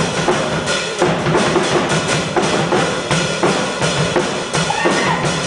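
Drum kit played live, a steady beat of bass drum and snare hits at about two to three a second, within louder music.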